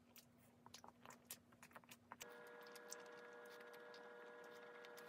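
Near silence: faint, soft chewing clicks of a cream bun being eaten, with a faint steady electrical hum that comes in about two seconds in.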